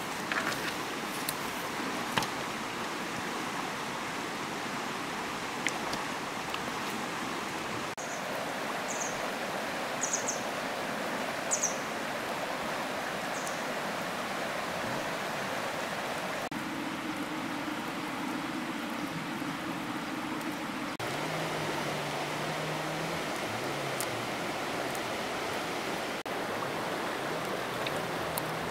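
Steady rush of flowing water, with a few short high chirps about a third of the way in.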